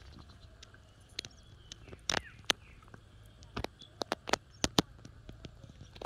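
Scattered sharp clicks and taps from hands handling fishing line, hook and bait, a dozen or so irregularly spaced, over a low steady outdoor background with a faint bird call.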